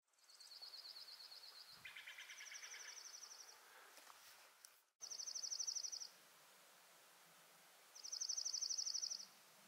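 Small songbirds singing rapid, evenly pulsed trills, each a second or so long, several high-pitched and one lower, over a faint steady outdoor hiss.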